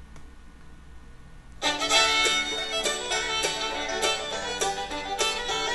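A faint mouse click, then about a second and a half in, a music track starts playing abruptly: upbeat bluegrass-style music with fiddle and plucked strings.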